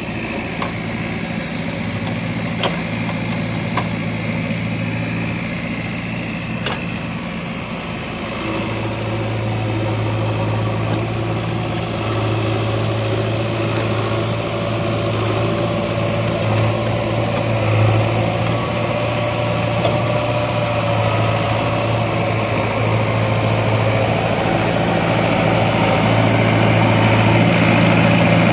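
Heavy diesel engine running steadily with a low hum, getting a little louder about eight seconds in and again near the end. A few light clicks in the first seven seconds.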